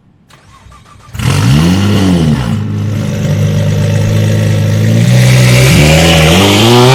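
Ducati Panigale V4 R's V4 engine comes in loud about a second in with a quick throttle blip that rises and falls. It then holds a steady note before revving higher in steps near the end.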